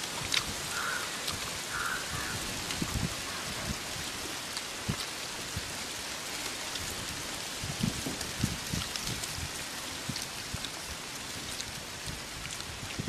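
A steady hiss with scattered faint ticks and a few dull low thumps, the thumps around three seconds in and again near eight seconds.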